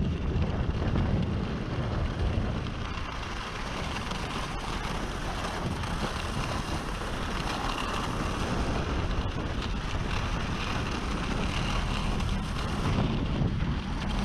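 Wind rushing over the microphone of a skier gliding down a groomed run, with the steady hiss of Völkl skis sliding on packed snow.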